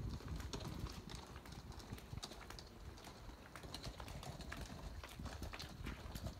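Footsteps on stone paving, irregular sharp clicks over a low, uneven rumble.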